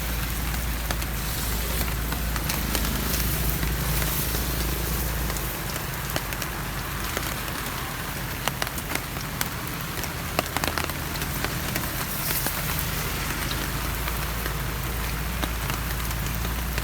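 Wheat-and-rice-flour snack batter deep-frying in hot oil: a steady sizzle with scattered sharp pops and crackles, over a low hum.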